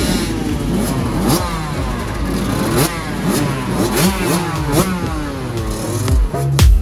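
Several motocross bikes racing, their engines revving up and down through the gears with many overlapping rising and falling pitches. A thumping electronic music beat cuts in near the end.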